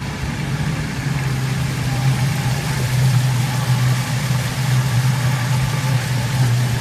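A vehicle's engine running steadily at one even pitch as it travels, over a constant hiss.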